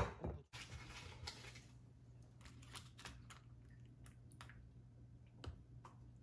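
Hands laying and pressing sheets of kelp over radish pieces in an earthenware crock: faint rustling and small scattered clicks over a steady low hum. A sharp knock opens it.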